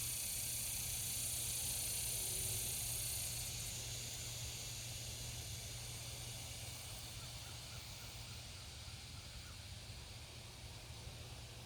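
A high, steady insect chorus that is loudest for the first few seconds and then fades down, over a low steady hum. A faint run of short chirps comes in about two-thirds of the way through.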